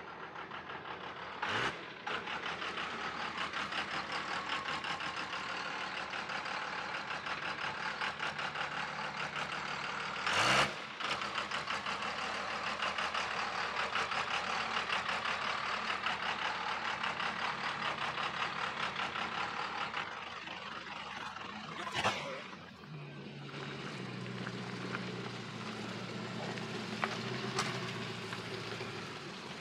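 Lifted diesel pickup truck engine running as the truck rolls slowly past, with three brief sharp sounds scattered through. In the last quarter the engine sound turns lower and steadier, like a diesel idling.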